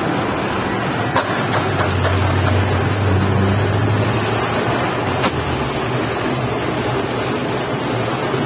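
Steady rushing noise of walnut hulling machinery and water, with a low hum that swells for a few seconds early on and a couple of sharp clicks.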